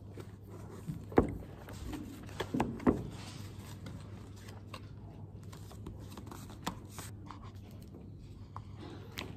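A paperback book handled on a table: a few knocks as it is moved and set down, the loudest about a second in and near three seconds, then pages flipped and turned with small rustles and clicks. A steady low hum runs underneath.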